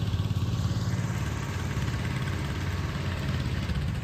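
Vintage John Deere row-crop tractor engine idling steadily.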